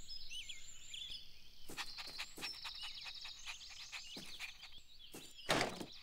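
Cartoon soundtrack of birds chirping and tweeting, with the light pattering steps of a small cartoon puppy running from about two seconds in. A louder brief sound comes near the end.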